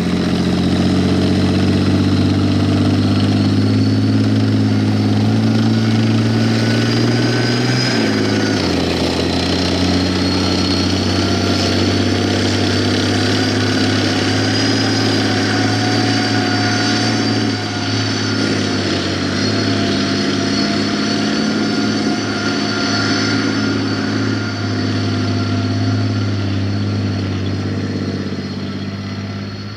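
Heavy vehicle engine running steadily, with a strong low engine note and a high whine above it; the pitch dips and recovers once, about eight seconds in.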